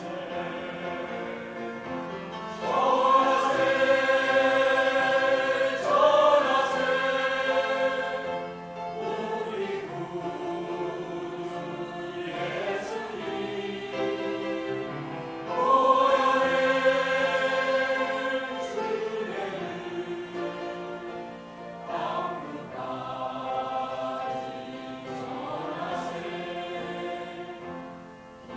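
Choir singing a Christian praise song in long held notes. The singing swells louder on a phrase about three seconds in and again about halfway through.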